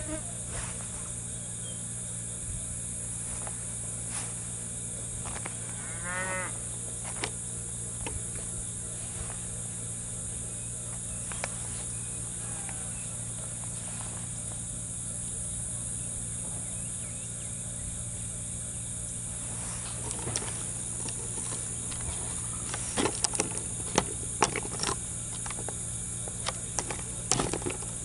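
Rural ambience: a steady high-pitched insect chorus over a low steady hum, with one short animal call about six seconds in and a run of clicks and knocks in the last several seconds.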